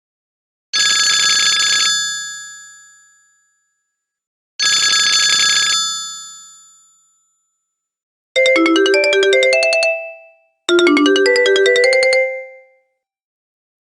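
Sony Ericsson T610 ringtones: a bright bell-like chime sounds twice, each ringing out and fading, then a short, quick run of electronic notes plays twice.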